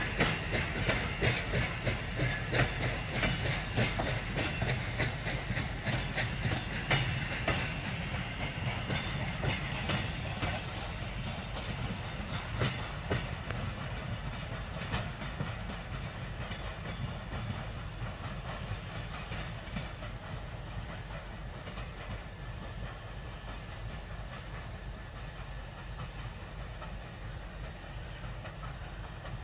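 Passenger coaches rolling past, their wheels clicking over the rail joints, then the sound fades as the train pulls away.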